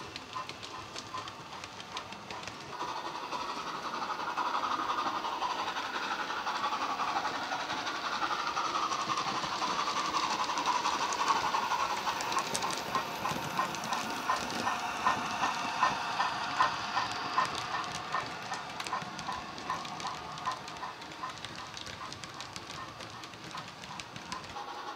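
Hornby A3 Flying Scotsman model's digital steam sound, from an SWD U-Drive sound file played through a small speaker in the tender: rhythmic steam chuffing with hiss as the locomotive runs. It grows louder as the train passes close, with a run of evenly spaced sharp clicks in the middle, then fades away.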